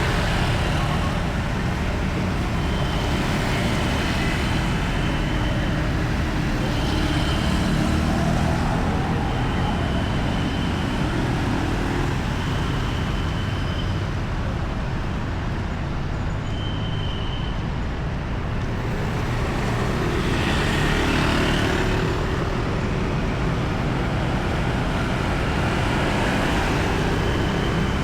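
Busy city road traffic: a steady stream of motorcycles and cars running past, with louder swells as vehicles pass close, about four times. A short high tone recurs every few seconds over the traffic.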